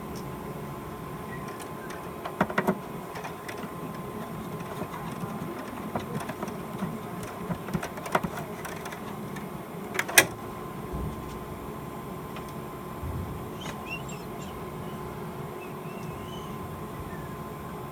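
Small clicks and knocks of tools and parts being handled while working on a fire alarm panel's wiring, with a loud pair of clicks a couple of seconds in, a run of ticks in the middle and a sharp click about ten seconds in. A faint steady hum sits underneath.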